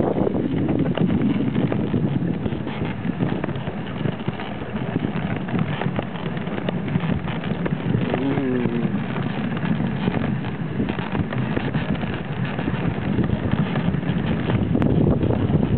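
Dog sled running over a snow trail behind a husky team: the runners hiss and scrape steadily on the snow, with wind buffeting the microphone. A brief wavering whine about eight seconds in.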